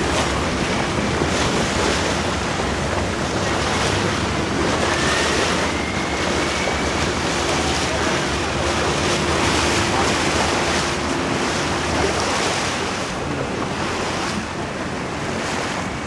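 Steady wind buffeting the microphone over the rush of water from a moving boat, with a low engine rumble beneath.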